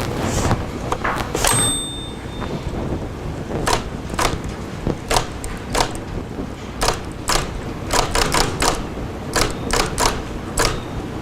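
Manual typewriter being typed on: sharp key strikes coming irregularly, a few a second. There is a brief high ring about a second and a half in.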